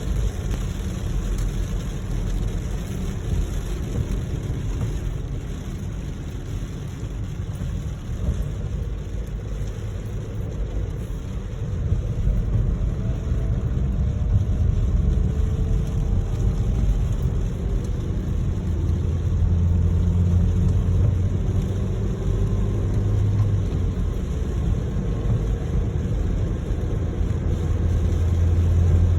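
A car in motion, with a steady low engine and road rumble; the engine note rises and falls gently through the middle, and a deep hum swells near the end.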